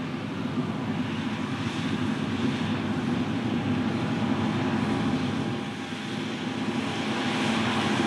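Tractor engine running steadily as it pulls a loaded grain cart, a low, even hum with no break.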